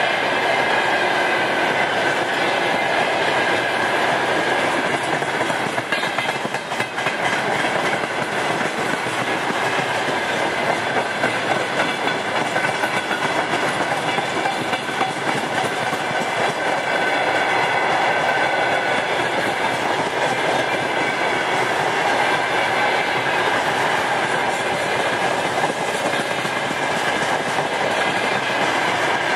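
Railway tank cars of a freight train rolling past: a steady rumble of steel wheels on the rails, with clickety-clack over the rail joints and a steady high ringing above it.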